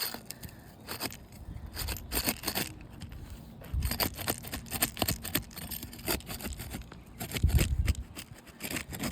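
Steel flat bar scraper prying under asphalt roof shingles to break their sealant strip: irregular scraping and clicking strokes.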